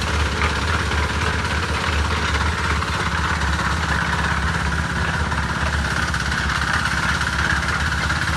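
Concrete mixer's engine running steadily at a constant speed, with an even low pulse and no change in pace.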